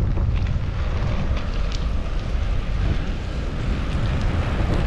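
Wind buffeting the microphone of a camera on a moving bicycle: a loud, steady low rumble with a few scattered clicks.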